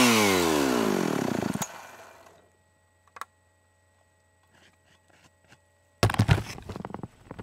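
A two-stroke chainsaw engine winds down after being shut off, its pitch falling steadily until it dies out about two seconds in. After a pause with a single click, a run of rustling knocks and thumps starts near the end.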